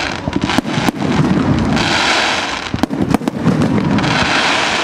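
Fireworks display: a rapid, dense string of bangs and booms over a continuous rumble, with waves of hissing crackle coming and going.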